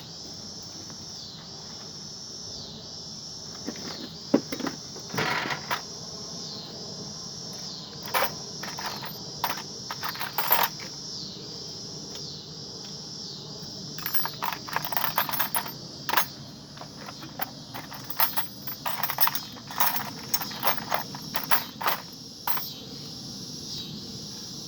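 Metal parts and hand tools clinking and rattling in scattered bursts as an ice maker is taken apart, with a steady, high, pulsing chorus of insects in the background.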